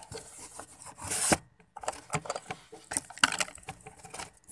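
Close rubbing and scraping handling noise, with a swelling rub about a second in followed by scattered light knocks and clicks, as of cardboard boxes or the phone being brushed and handled.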